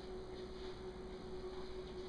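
Quiet room tone with a steady low hum.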